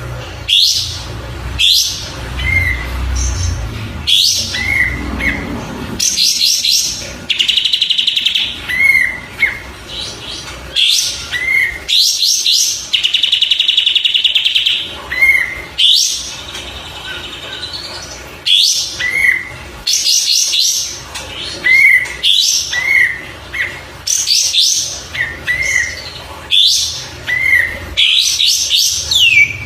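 Kapas tembak songbird singing over and over: quick high trilled phrases mixed with short rising-and-falling whistled notes, and two longer rattling trills, about seven and thirteen seconds in. A low rumble sits under the first few seconds.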